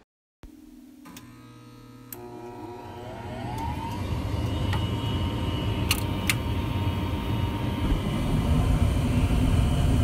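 Rheem 80% gas furnace's induced-draft blower motor starting up. Its whine rises in pitch for about two seconds as it spins up to speed, then it runs steadily with a low rumble that grows slowly louder. A few sharp clicks come in the middle.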